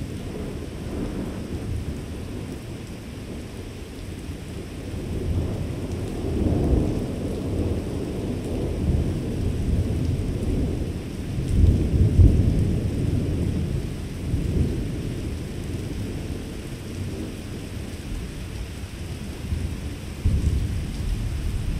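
Thunder rolling in long low rumbles that swell and fade, building about six seconds in, loudest around twelve seconds, and swelling again near the end.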